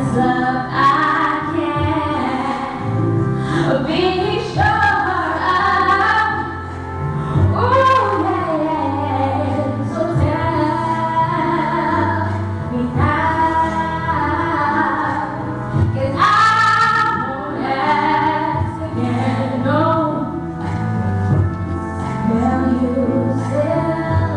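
A girl singing a pop song solo into a handheld microphone, her voice gliding and sustaining long notes over an instrumental accompaniment.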